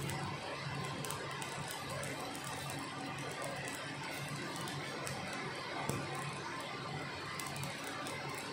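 Stick-welding arc crackling and sizzling steadily as the electrode burns against steel plate.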